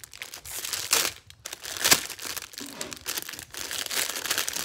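Clear plastic packaging bag crinkling and rustling as it is handled and opened, in irregular crackles with louder bursts about one and two seconds in.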